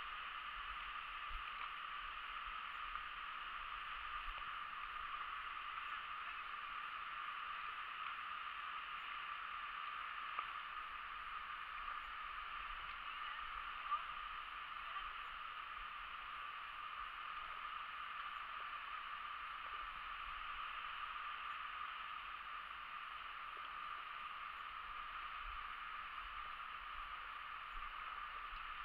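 Steady rush of running river water, with one sharp click about halfway through.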